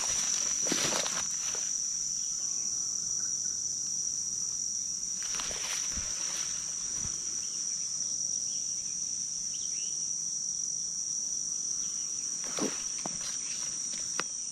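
Steady, high-pitched chorus of insects, unbroken throughout, with a few brief rustles near the start, in the middle and near the end.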